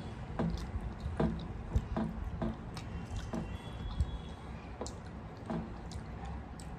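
Eating sounds of two people eating rice and curry by hand: irregular wet chewing clicks and smacks, with fingers squishing and mixing the food on brass plates.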